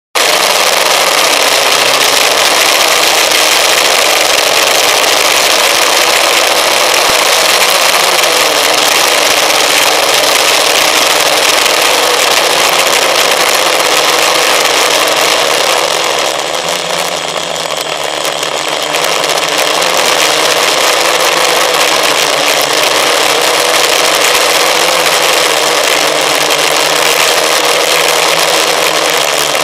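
FPV model aircraft's motor and propeller heard from its onboard camera: a loud, steady whine over rushing air, easing off briefly about 16 seconds in before picking up again.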